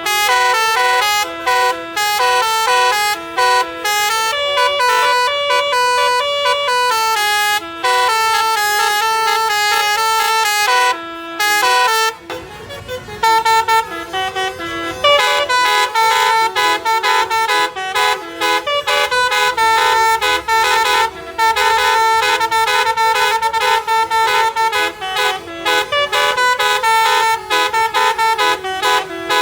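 Basuri multi-tone bus horn (telolet horn) playing quick melodic tunes, note after note. About twelve seconds in it breaks off briefly, with a low rumble, before the tune resumes.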